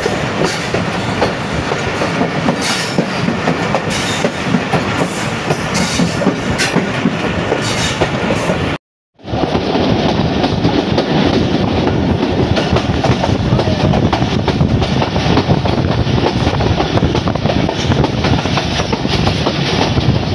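Moving passenger train heard from the open doorway of its carriage: loud, steady noise of the wheels running on the rails with a clickety-clack rhythm. It breaks off for a moment about nine seconds in, then carries on.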